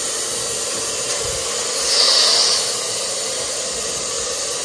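Jellyfish handheld pet dryer running steadily as it blows on a short-haired dog: a rushing hiss of air over a faint motor hum. About two seconds in the hiss swells louder and brighter for about half a second, then settles back.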